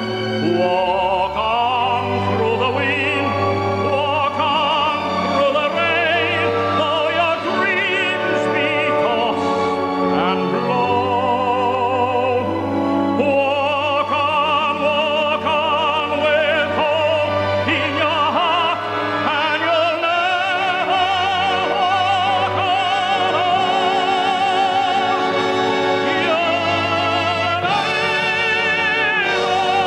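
Operatic tenor singing with strong vibrato over orchestral accompaniment, building to a loud climax with a high held note near the end.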